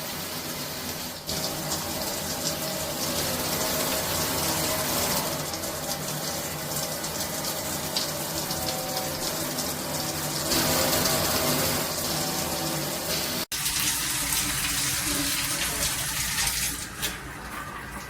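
Water spraying steadily from a shower head. About thirteen and a half seconds in, the sound cuts abruptly and resumes with a fuller, lower rush.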